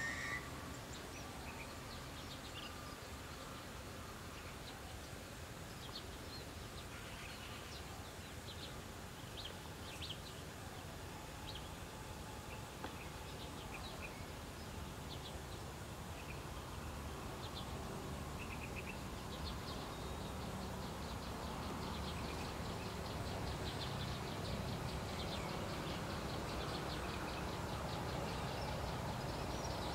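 Outdoor rural ambience: scattered short, high bird chirps over a steady low background hum. About two-thirds of the way through, a rapid high trill joins in and the whole grows a little louder.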